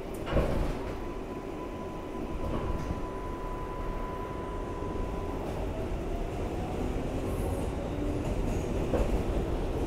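R188 subway train heard from inside the car as it pulls away and picks up speed: steady rumble of wheels on rail, with a knock just after the start. From about halfway through, a whine rises slowly in pitch.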